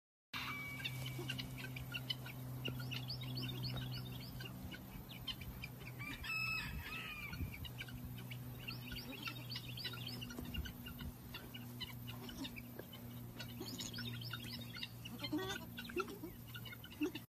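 Farmyard birds chirping and clucking without a break over a steady low hum, with one louder drawn-out call about six seconds in.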